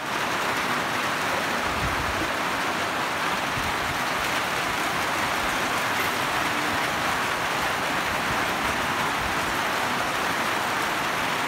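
Heavy rain falling steadily in a downpour, an even rushing noise that holds at one level throughout.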